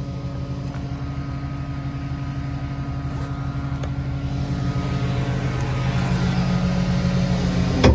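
Flatbed tow truck's engine running steadily with a low rumble, growing gradually louder. One sharp click comes near the end.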